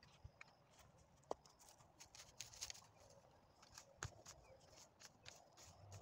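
Faint, irregular clicks and short scrapes of a long-handled hoe chopping at and dragging through dry weeds, stalks and soil.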